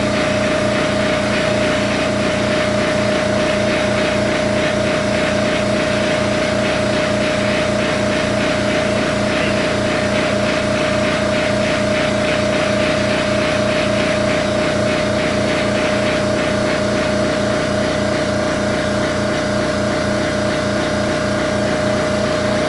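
Air compressor running steadily, with a constant hum and a fast, even low chugging underneath.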